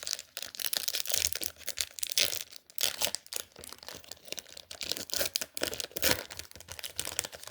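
A Pokémon card booster pack's foil wrapper being torn open and crinkled by hand: a long run of irregular sharp crackles and rips.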